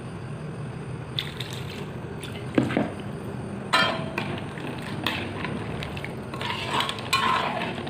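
Liquid poured from a steel plate into a steel wok of gravy, then a steel ladle stirring the gravy and knocking against the wok a few times.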